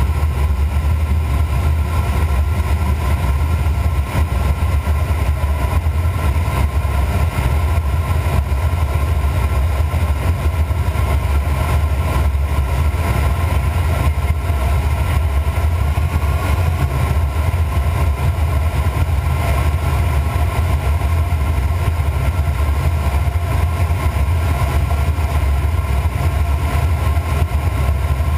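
Steady rush of airflow inside the cockpit of a Hoffmann H-36 Dimona motorglider gliding with its engine off and propeller feathered: a loud, even low rumble with a broad hiss above it.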